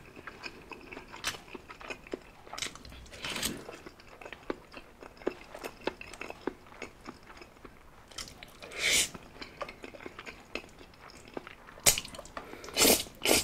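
A person chewing a mouthful of spaghetti in sauce with many small wet mouth clicks and smacks, broken by three louder slurps of noodles, about three seconds in, about nine seconds in and near the end.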